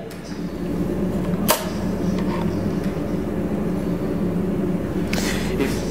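A steady machine hum, with one sharp click about a second and a half in.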